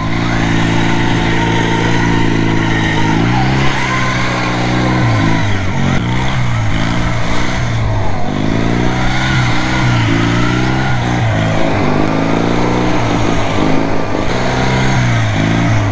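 Modified riding lawn mower's engine running loud through an aftermarket exhaust. It holds a steady high rev for about three seconds, then revs up and down again and again.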